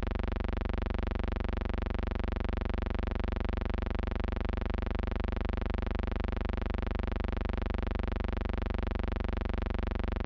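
Steady electrical hum-buzz with many evenly spaced overtones, unchanging throughout: a technical noise on the archive soundtrack, not a sound of the scene.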